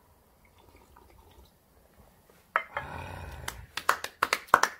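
Two people clapping their hands, a quick run of about eight sharp claps near the end, after a quiet stretch of drinking from small metal cups. About two and a half seconds in comes a knock, then roughly a second of drawn-out breathy exhaling.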